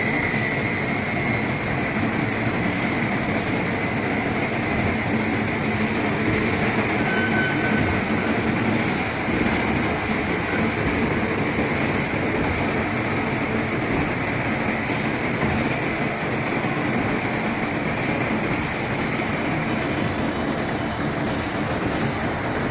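Spindle veneer peeling lathe running steadily, turning a log against the knife as it peels veneer. A dense mechanical clatter with a faint steady whine and scattered sharp knocks.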